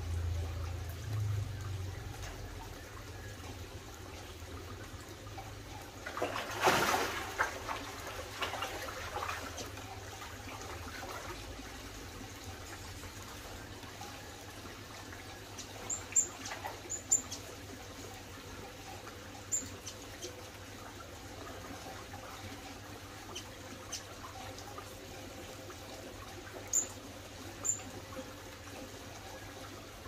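A steady trickle of water runs under a few short, high chirps from small aviary finches (Java sparrows, canaries, zebra finches). A brief louder rushing noise comes about six seconds in.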